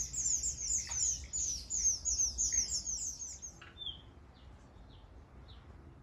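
Cape rock thrush nestlings calling: a rapid run of short, high chirps, about six a second, that stops suddenly about three and a half seconds in. A few faint chirps follow.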